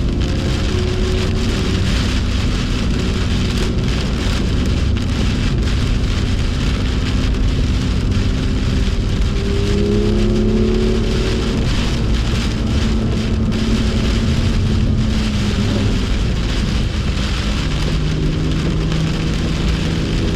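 BMW M2's turbocharged straight-six engine under way, its note rising and falling as the car accelerates and lifts. Over it is a steady hiss of heavy rain and water spray, with many small crackles.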